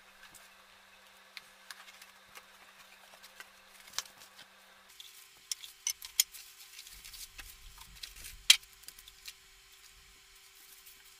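Unboxing handling sounds: a blade slitting packing tape on a cardboard box, then cardboard flaps and plastic-wrapped parts being handled. It comes through as a scatter of light clicks, scrapes and rustles, with one sharper click about two-thirds of the way through.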